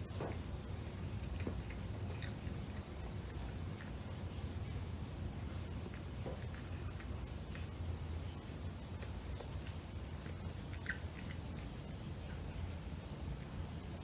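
A cat eating dry kibble from a bowl, with a few faint crunching clicks in the first several seconds, under a steady high-pitched tone and a low hum.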